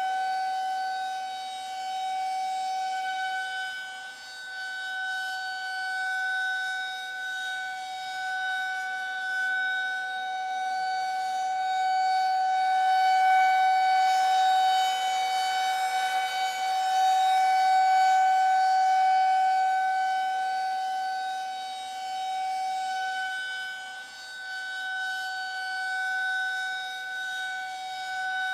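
Civil-defense air-raid siren sounding a steady held tone, its loudness swelling and fading slowly over several seconds. It is the alert signal telling people to take cover immediately.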